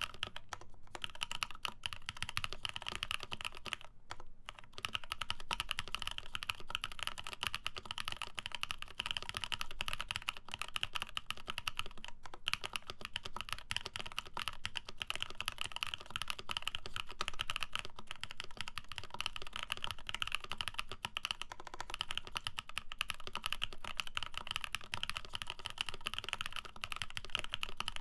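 Steady, fast typing on a J-01 custom mechanical keyboard: lubed Prevail Epsilon switches in an FR4 plate under GMK keycaps, keystrokes clicking in a continuous stream with a couple of brief pauses.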